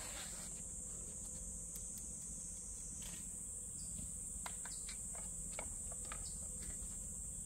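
Steady high-pitched insect chirring. Over it, about halfway through, comes a scatter of light clicks and taps as the live katanas are handled and one is slid back into its scabbard.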